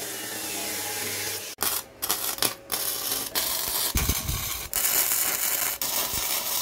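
Abrasive cut-off saw grinding through steel flat bar with a steady noise and low motor hum, cutting off about a second and a half in. Then an electric welding arc crackles and sputters in short runs with brief gaps while joining steel pieces.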